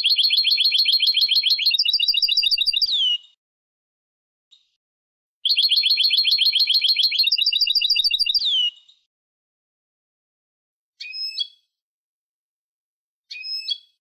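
Young European goldfinch singing: two loud phrases of rapid, even trills, each switching to a second trill partway through and ending in a falling slur. Two short calls follow near the end.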